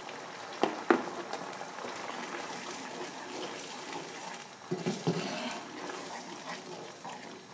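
Carbonara sauce of bacon and cream simmering and bubbling in a metal frying pan, a steady hiss. A spatula knocks lightly on the pan twice about a second in, with more handling noise around five seconds in.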